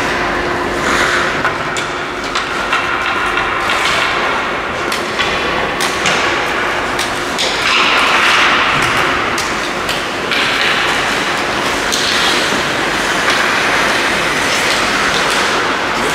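Ice hockey rink sounds: skate blades scraping and hissing across the ice in swells of a few seconds, with many sharp knocks of sticks and puck.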